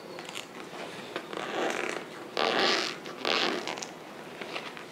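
Perforated tear strip on a cardboard camera box being torn open, in three short tearing pulls about a second apart.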